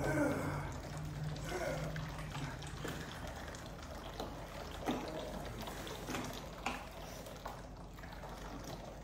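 Wet concrete grout sloshing and pouring out of plastic buckets into a form, with a few light knocks about halfway through.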